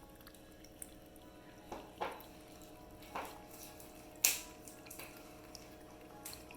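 Cats lapping yogurt from dishes: a few separate wet licks and clinks, a second or so apart, the sharpest about four seconds in, over a faint steady hum.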